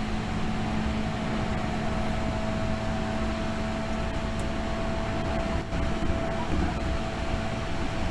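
Tokyu 8500 series electric train running, heard from inside the car: a constant rumble of wheels on the rails with a steady low hum and a steadier higher tone over it.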